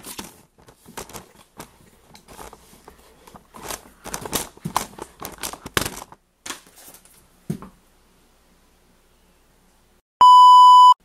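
Scrapes, clicks and rustling of the recording device being handled close to the microphone, then a short lull. In the last second comes a loud steady test-tone beep, the kind played over TV colour bars.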